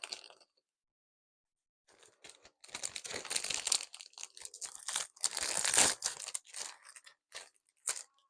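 Packaging crinkling and tearing as items are pulled out of a box, in rustling bursts that start about two seconds in, with a few short clicks near the end.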